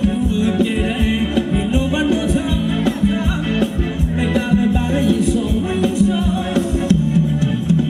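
Live band playing Thai ramwong dance music, with a steady drum beat and a strong bass line.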